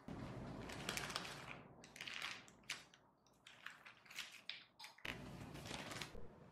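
Baking paper rustling and crinkling in irregular bursts as hands fold and adjust it around the shaped baguette dough.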